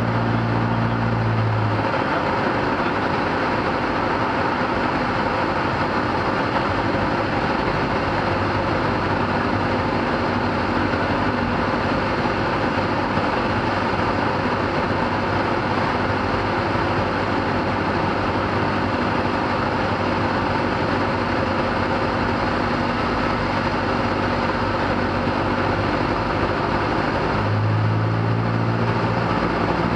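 Single-engine light airplane's piston engine and propeller running steadily, heard from inside the cockpit while the plane descends on approach to land. The low engine hum changes about two seconds in and changes back near the end.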